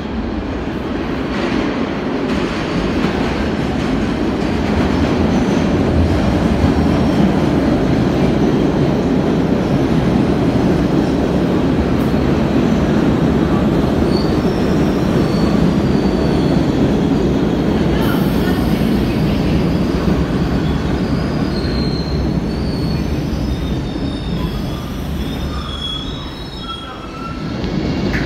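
MBTA Red Line subway train pulling into an underground station and braking to a stop: steady running noise of wheels on rail, with high squeals from the wheels and brakes through the second half as it slows.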